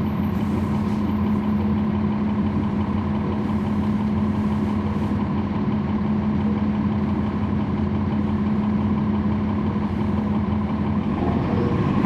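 Cummins ISL9 diesel engine of a NABI 40-foot transit bus running at a steady pitch, heard from on board, with a constant low hum. Near the end the hum shifts as the engine note changes.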